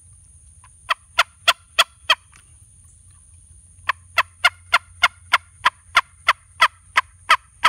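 Turkey Tube friction call, pressed against the upper lip and tongued, sounding turkey clucks and yelps: a run of five short, sharp notes, then after a pause a longer, even run of about a dozen, roughly three a second.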